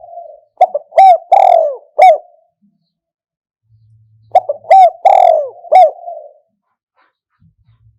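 Spotted dove cooing: two loud phrases of several quick, bending coo notes, the first starting about half a second in and the second about four seconds in, each after a softer low coo.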